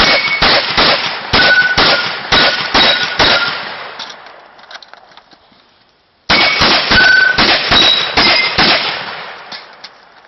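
Semi-automatic 12-gauge shotgun fired in two rapid strings, about ten shots and then, after a pause of a few seconds, about seven more. Some shots are followed by the brief ringing clang of struck steel targets.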